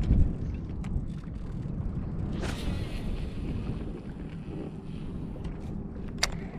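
Wind buffeting the microphone on an open bass boat, a steady low rumble. A short hiss comes about two and a half seconds in, and a few sharp clicks, the loudest near the end.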